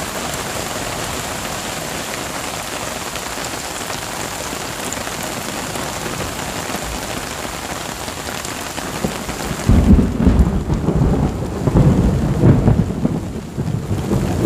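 Steady hiss of rain falling on the beach. About two-thirds of the way through, a loud, rolling rumble of thunder sets in and swells and fades with the rain still falling.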